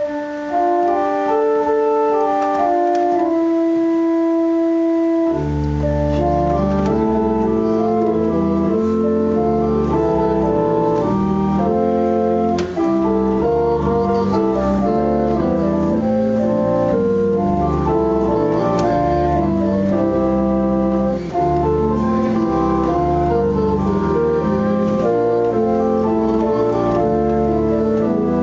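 Organ music as a postlude to the service: held chords that move from note to note, the upper parts alone for about five seconds before low bass notes come in under them for the rest.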